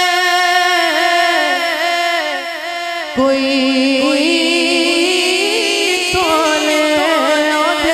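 A man singing a Punjabi naat into a handheld microphone, in long, wavering, ornamented notes. About three seconds in he drops to a lower held note and sings louder.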